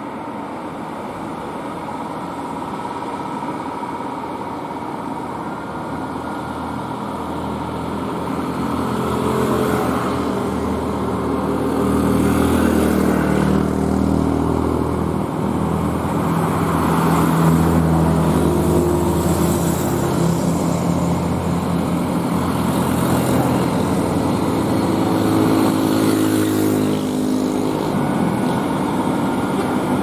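Diesel engine of a Hino container truck pulling slowly up a steep climb, its steady note growing louder as it approaches and then holding. Motorcycles pass by.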